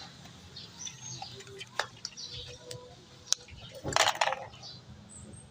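Birds chirping now and then, with a few sharp clicks and a short clatter about four seconds in from hand work at the engine.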